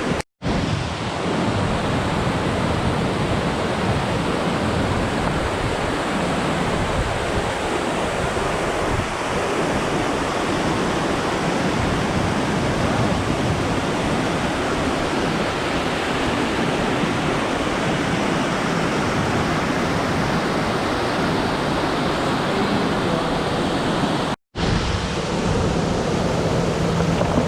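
Steady rushing roar of a waterfall close by, broken by two momentary dropouts to silence, one near the start and one near the end.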